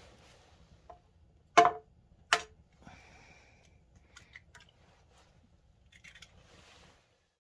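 An egg rapped twice on the rim of a frying pan to crack it: two sharp knocks less than a second apart. These are followed by faint sizzling and scattered small crackles from the pan on the campfire.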